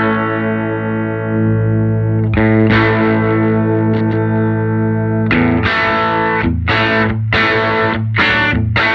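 Electric guitar chords from a Telecaster's bridge pickup through a 1968 Fender Vibrolux tube amp. A chord rings out, is struck again about two and a half seconds in and left to ring, then is strummed in a steady rhythm from about five seconds in. The amp is breaking up sweetly into a mild overdrive.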